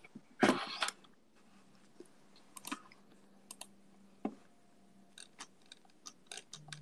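Scattered faint computer keyboard and mouse clicks over a faint steady hum, with one short, louder burst of rustling noise about half a second in.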